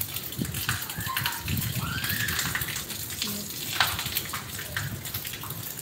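Steady rain falling on a wet rooftop floor, a dense patter of drops hitting and splashing the hard surface.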